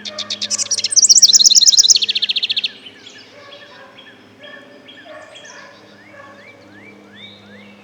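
A wren singing: a loud, very rapid trill of high notes lasting under three seconds, dropping lower in pitch about halfway through. Then only faint, scattered short chirps from birds farther off.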